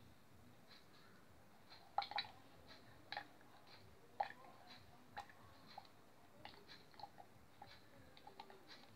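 Faint, irregular clicks and small pops as vacuum pump oil drains from an upturned plastic bottle into the pump's oil fill port.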